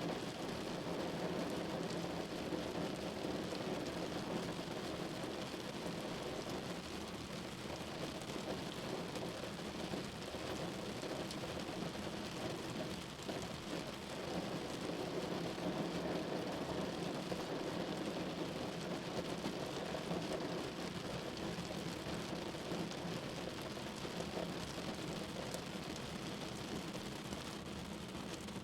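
Rain falling steadily: an even wash of noise without breaks.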